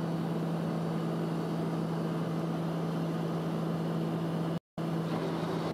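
Steady drone of a small plane's engine and propeller heard inside the cabin, one low hum over a wash of noise. The sound cuts out for a moment near the end.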